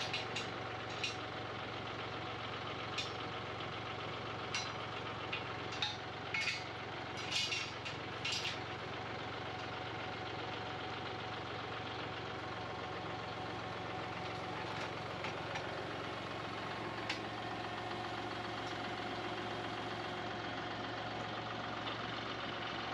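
Tractor engine idling steadily, with several sharp metallic clinks from the loader's lifting chain and steel over the first eight seconds or so.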